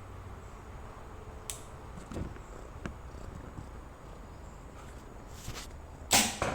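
A bow shot near the end: one sharp, loud snap, then a second, weaker knock a fraction of a second later. Beneath it is a steady background hum of insects, with a few small clicks earlier.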